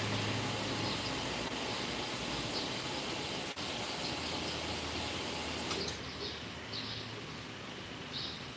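Steady outdoor background noise with a low hum, and small birds giving short high chirps every second or two, clearer in the second half.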